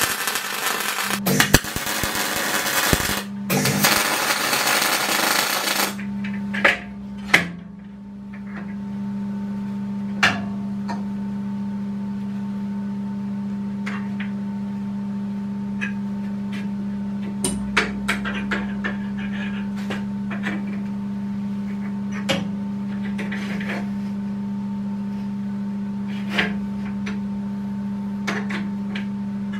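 MIG welder laying a weld on steel: a loud, steady crackling hiss that stops about six seconds in. After it, a steady low hum with scattered light metallic clicks and taps as clamps and parts are handled on the steel.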